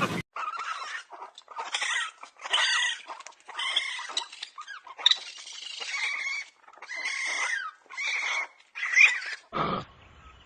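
An animal giving a series of about nine short, high-pitched calls, some bending in pitch.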